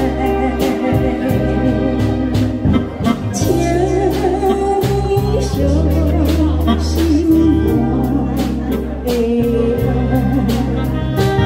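A woman singing through a microphone over a live band, with electric guitars, keyboard and bass under a steady beat.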